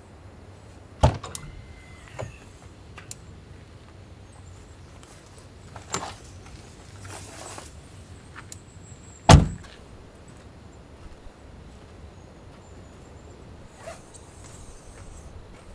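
Jeep Gladiator door handled: a latch click near six seconds, then the door shutting with a solid thunk just past nine seconds, the loudest sound. A single sharp knock comes about a second in.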